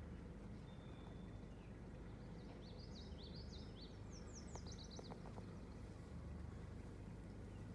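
A songbird sings a quick run of high, slurred notes starting about two and a half seconds in and lasting a couple of seconds, over faint lakeside ambience with a steady low rumble. A few light clicks come near the end of the song.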